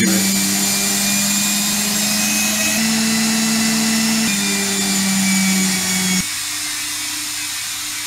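Vestel front-loading washing machine spinning: a steady motor hum and whine whose pitch steps up about three seconds in and back down a second and a half later, then drops sharply about six seconds in. The machine is spinning and pumping its water out normally, its drain having been cleaned out.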